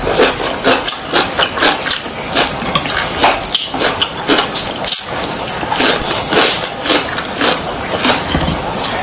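Close-up eating sounds: a mouth chewing and crunching food, with many quick, irregular crisp crunches.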